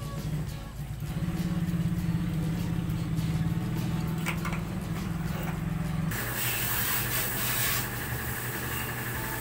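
Transformer-type soldering gun humming steadily while a solder joint is made, cutting off suddenly about six seconds in. After that comes a hissy rustle with a lower hum as the box is handled.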